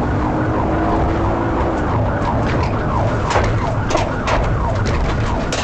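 Police car siren wailing in rapid repeating sweeps (yelp), clearest in the second half, over the steady rumble of a car driving fast in pursuit, with scattered sharp clicks.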